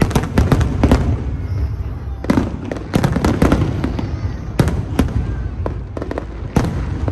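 Aerial fireworks bursting: a rapid, irregular series of sharp bangs over a continuous low rumble.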